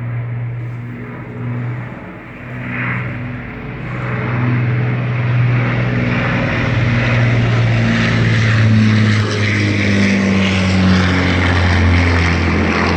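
Propeller aircraft engine running with a steady low hum, growing louder from about four seconds in as the aircraft approaches.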